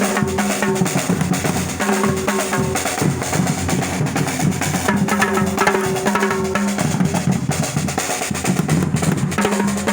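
Music dominated by drums and percussion, with dense repeated strokes over held low tones.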